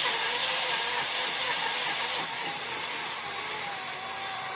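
Countertop blender motor running steadily, blending eggs, cottage cheese and banana into a smooth batter; its hum rises slowly in pitch as the mix turns smooth.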